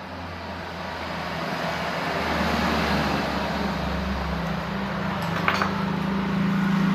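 A motor vehicle's engine running with a steady low hum, getting louder over the first few seconds, with a short click about five and a half seconds in.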